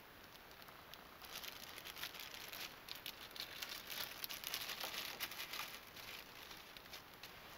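Thin clear plastic bag crinkling as fingers handle and open it: a dense run of small crackles that begins about a second in and is loudest in the middle.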